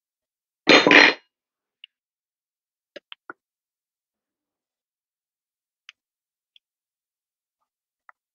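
Metal serving utensils clattering once loudly on a ceramic plate about a second in as a slice of pie is served, followed by a few faint, sharp clinks and taps.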